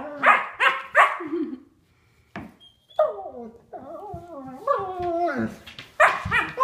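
Two German Shepherds, an adult and a young puppy, vocalizing in rough play. There are three quick yips or barks in the first second and a wavering whine from about three seconds in. Another sharp yip comes near the end.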